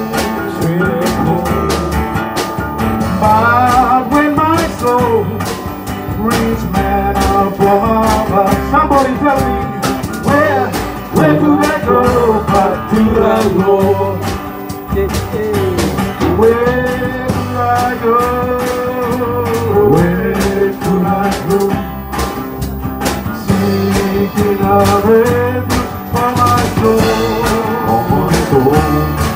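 Live church gospel music: an acoustic guitar strummed steadily, with a second guitar and a voice carrying a slow melody.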